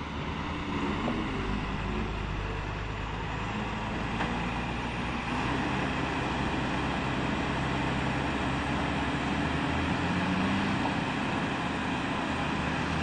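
KAMAZ dump truck's diesel engine running steadily while the tipper body is raised; it gets a little louder over the first few seconds, then holds.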